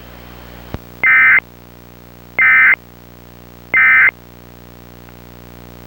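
Emergency Alert System end-of-message data tones: three short, identical bursts of high, warbling digital squawk, about a second and a half apart, over a steady low hum. They mark the end of the alert message. A faint click comes just before the first burst.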